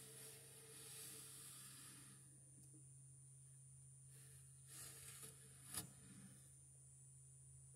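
Near silence with a steady faint hum, broken by soft rustling in the first couple of seconds and again about five seconds in, and one sharp click just before six seconds.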